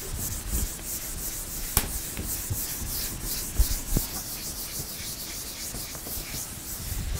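Whiteboard being wiped clean with an eraser: repeated rubbing strokes across the board's surface, with a few sharp knocks in between.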